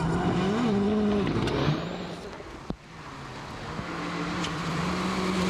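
A World Rally car's engine running hard on a stage, its pitch wavering with the revs. About halfway through it fades, a sharp click is heard, and then the engine builds back to a steady drone.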